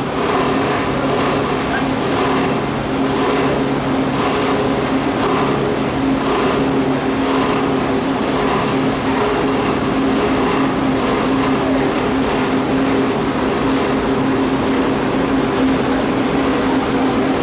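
Plastic film crushing and washing line running: steady, loud machine noise with a constant low motor hum.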